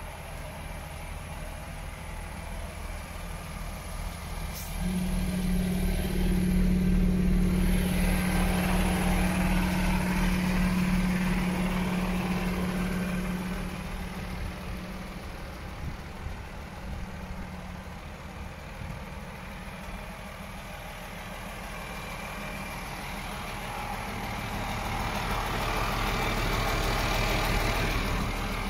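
DAF XF 450 truck's six-cylinder diesel engine idling steadily. It grows louder about five seconds in and again near the end.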